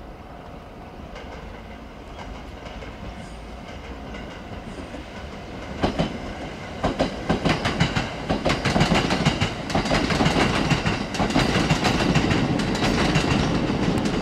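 Kintetsu electric train running on the line, its rumble building and then clattering loudly over rail joints from about six seconds in, a rapid clickety-clack of wheels.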